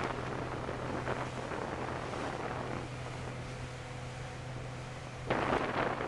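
Wind buffeting the microphone over the steady low hum of a car ferry's engines under way, with a stronger gust of wind about five seconds in.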